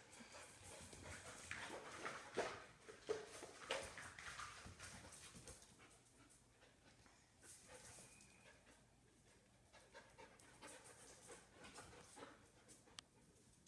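Dog panting quickly and faintly, with scuffling from two dogs at play. It is busier in the first few seconds and dies down after about halfway. The panting is from a dog tired out from playing.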